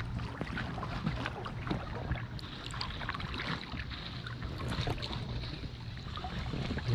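Water lapping and small splashes against a kayak's hull, close to the microphone at water level, with many irregular small ticks and slaps.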